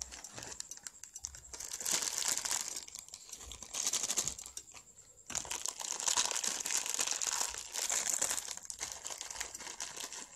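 Crinkling, rustling noise made of dense fine crackles, with a short lull about four to five seconds in.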